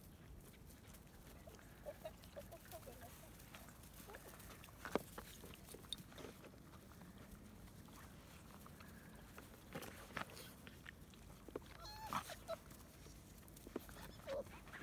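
Labrador puppies eating from plastic dishes in a cardboard feeder: faint, scattered clicks and knocks of muzzles against the dishes and cardboard, with a few brief, faint high-pitched calls.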